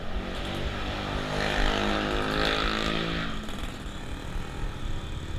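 A motor vehicle passing close by: its engine hum and road noise swell, are loudest about two to three seconds in, then fade away.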